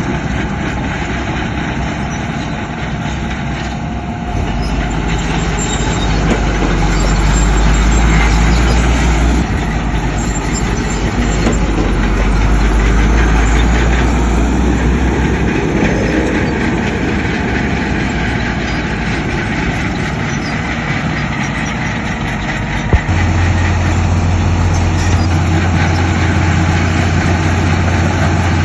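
Diesel engines of heavy earthmoving machinery working steadily. The deep engine note shifts about four seconds in, and again after a sharp knock near the end.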